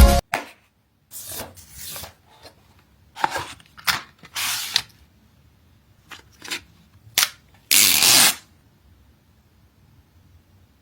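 Unboxing handling sounds: about ten short rustles, scrapes and clicks of a phone box and its contents being handled, the longest a half-second rasp near the end.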